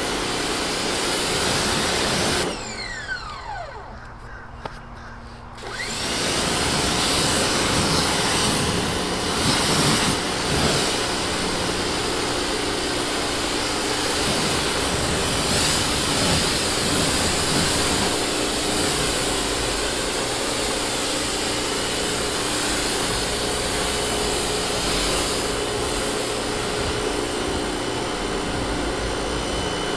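Pressure washer running and spraying water onto a car. About two and a half seconds in the motor cuts out and winds down with a falling whine, then starts again about three seconds later and runs steadily.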